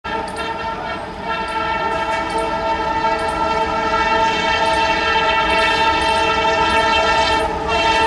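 Horn of an approaching WDM-3A diesel locomotive, sounded as one long, unbroken, many-toned blast that grows louder as the engine nears. The low rumble of its ALCO diesel engine runs beneath it.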